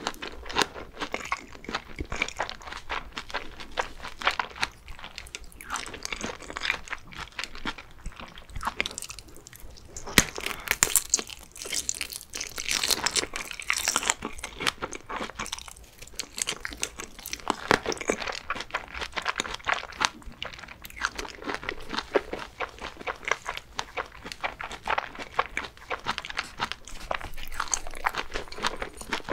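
Close-miked biting and chewing of a fried sausage: irregular crunching bites and wet chewing throughout, loudest about ten to fourteen seconds in.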